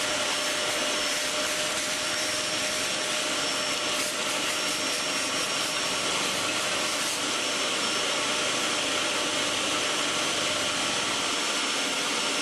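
Vacuum cleaner motor running steadily, a rush of air with a high whine over it.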